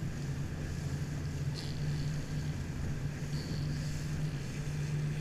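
Engine of a RIB (rigid inflatable boat) running steadily under way, a constant low drone with wind and water rushing past the hull.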